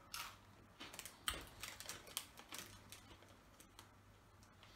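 Faint, irregular crackling of a foil crisp packet being handled, with crunching of Twiglets, the wheat snack sticks, being chewed. One sharper crackle comes about a second and a half in.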